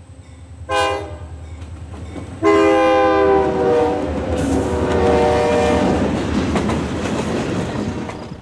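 Diesel freight locomotive horn, lead unit an EMD SD40-2: a short blast, then a long blast that drops in pitch as the locomotive passes, the closing short-and-long of a grade-crossing signal. Under it, the diesel engines run and the freight cars rumble and clatter past.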